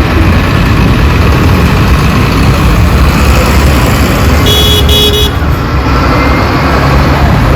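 Loud road and engine noise of a vehicle moving through traffic, with a short car-horn toot about four and a half seconds in.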